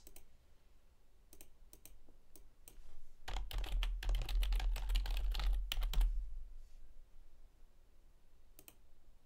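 Typing on a computer keyboard: a few separate clicks, then a quick run of keystrokes lasting about three seconds, then a single click near the end.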